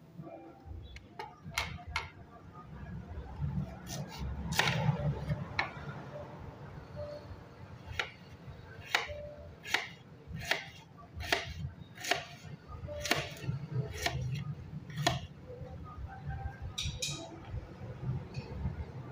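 Kitchen knife slicing a red onion on a ceramic plate: a few scattered clicks while the onion is peeled, then from about eight seconds in a steady run of sharp clicks, one to two a second, as the blade cuts through and taps the plate. A low rumble runs underneath.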